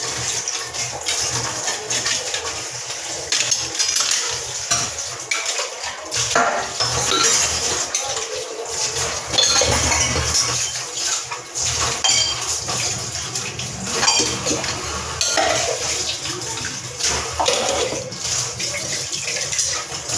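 Tap water running into a kitchen sink while steel pots and utensils are scrubbed and rinsed, with frequent clinks and clatter of metal dishes knocking together.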